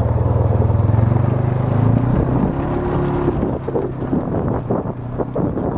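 Quad (ATV) engine running steadily, then revving up about two seconds in as it pulls away, followed by irregular knocks and rattles.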